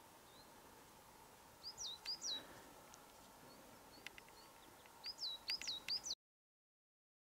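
A small bird calling, each chirp a quick downward sweep in pitch: a few about two seconds in, then a quicker run of five or six near the end, over a faint steady hiss. The sound cuts off to dead silence about a second before the end.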